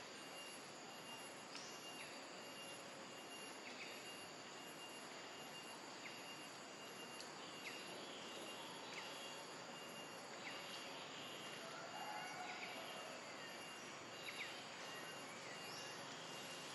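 Forest ambience: a steady hiss with a faint constant high insect tone, and short high chirps every second or two.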